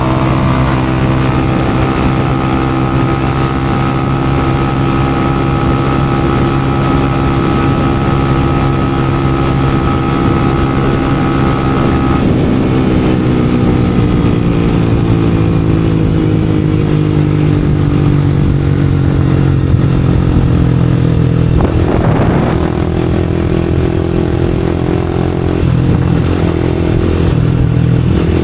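Motorcycle engine running through an aftermarket exhaust, held at raised revs for about twelve seconds. The revs then fall slowly back toward idle, with a short sharp pop or knock just before the engine settles into a lower steady idle.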